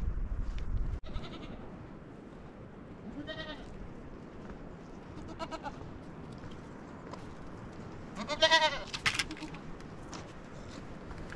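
Goat bleating three times with a quavering call, the third, about eight and a half seconds in, the longest and loudest.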